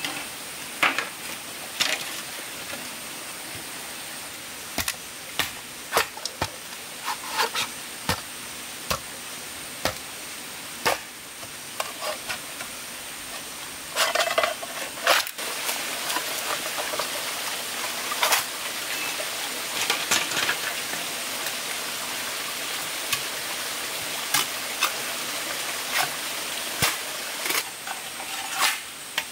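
Irregular sharp knocks and clicks, many of them scattered unevenly, over a steady hiss.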